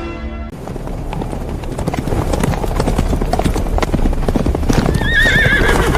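Horse hooves galloping, the hoofbeats growing louder as the horses approach, with a horse whinnying near the end.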